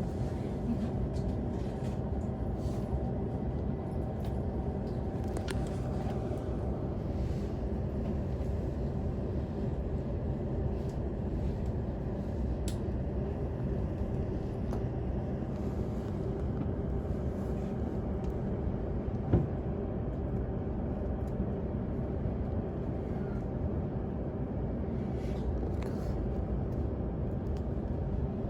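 Steady low hum inside a commuter train car standing at an emergency stop, with a few faint steady tones from its running onboard equipment. One sharp click about two-thirds of the way through.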